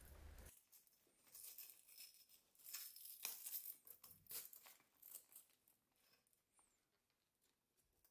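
Faint ripping and rustling of a Velcro strap and the clear plastic rain shield as the strap is wrapped around the stroller seat's footrest frame. It comes in several short bursts and stops about two-thirds of the way in.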